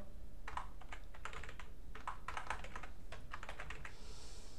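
Typing on a computer keyboard: short runs of quick keystrokes as a command line is typed in, stopping shortly before the end.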